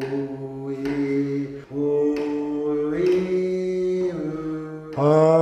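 A man singing long held vowel notes into the funnel of a manometric capsule, one steady pitch after another. The pitch steps up about three seconds in, drops back a second later, and a louder note starts near the end.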